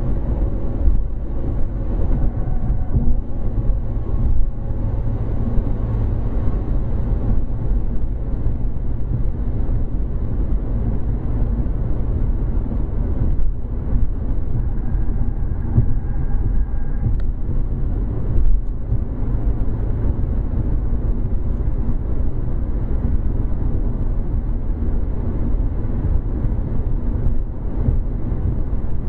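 Steady road and engine noise inside a car's cabin cruising at highway speed: a continuous low rumble of tyres and engine.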